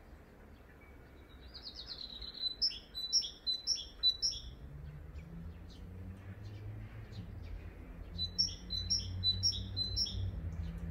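Songbird singing: two phrases of quick repeated high whistled notes, the first about two seconds in and the second near the end. A low steady rumble rises underneath from about halfway.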